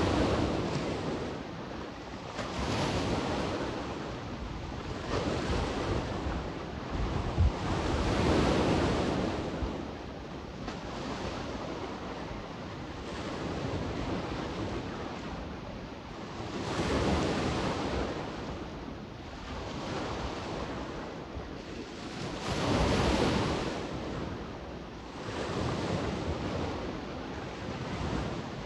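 Sea waves breaking and washing up the shore, swelling and falling every few seconds, with wind on the microphone and one brief low buffet about 7 seconds in.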